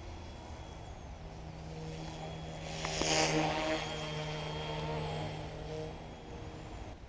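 A motor vehicle's engine with a steady pitch swells to its loudest about three seconds in, holds, then fades toward the end.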